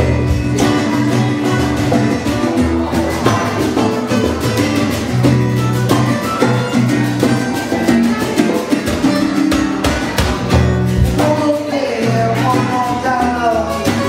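Live acoustic music: a strummed acoustic guitar with hand-drum percussion and a man singing.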